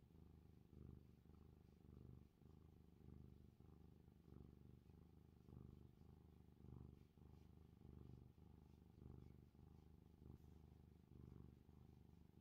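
Tabby cat purring softly while its head is scratched, a low continuous purr that swells and dips about once a second with its breathing.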